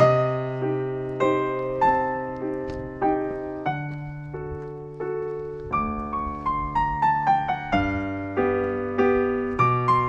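Background piano music: a slow melody of struck notes over held low bass notes, with a falling run of notes about six seconds in.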